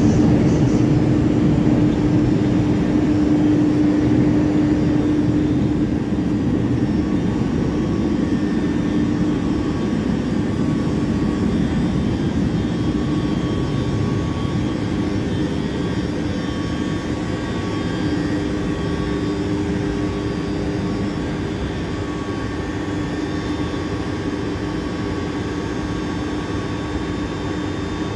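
Z 50000 (Francilien) electric multiple unit standing at an underground platform, its onboard equipment giving a steady whooshing hum with a held low tone, slowly growing a little quieter.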